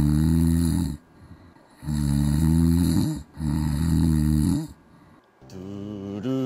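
A person snoring: three long, deep snores, each about a second and a half. A held, chant-like musical tone comes in about five and a half seconds in.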